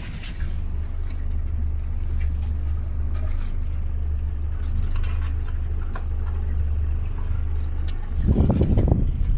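Outboard motor idling with a steady low hum. Near the end comes a louder burst of knocking and rustling as crabs are handled in the pot and one is thrown overboard.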